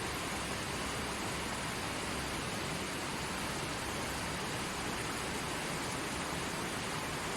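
Stream water running over rocks, a steady rushing.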